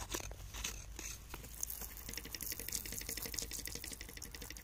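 A thin jet of water spraying and splashing onto a crystal cluster and the dirt around it, a fast patter of drops, after a few light scrapes and clicks of a metal digging tool.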